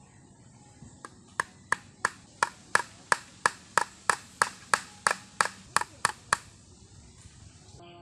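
Hammer knocking on a bamboo frame: about seventeen even strikes at roughly three a second, starting about a second in and stopping well before the end.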